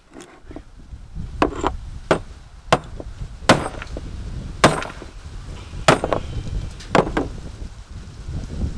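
Hammer blows striking small electronic components to crack them open: about eight sharp, separate strikes, irregularly spaced roughly a second apart.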